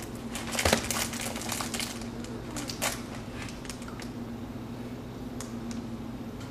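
Irregular sharp clicks and taps, thickest in the first three seconds and sparser after, over a steady low hum.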